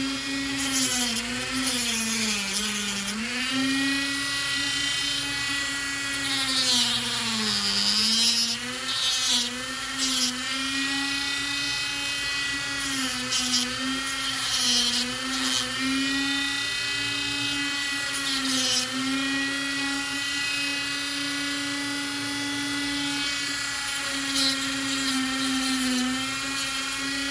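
Dremel rotary tool on a flex-shaft attachment running with a small cutting wheel, cleaning up a cut in a plastic scope cap. The steady high-pitched whine sags in pitch several times as the wheel bears into the plastic, with a scratchy grinding over it.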